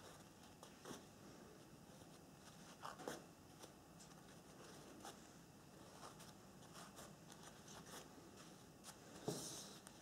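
Faint rustling and crinkling of a paper napkin being handled and pulled into points by hand, with short louder rustles about three seconds in and near the end.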